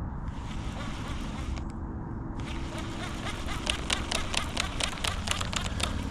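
Fishing cast and retrieve: a hiss of line running off the reel for about two seconds, then a run of quick light clicks as the reel is cranked back in.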